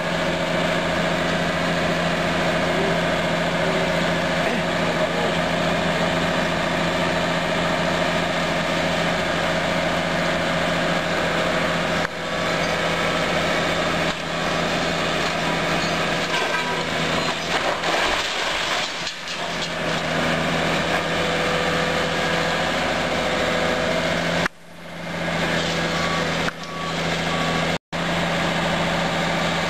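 High-reach demolition excavator's diesel engine running steadily with a hydraulic whine, with occasional crunching of masonry as the building is pulled down.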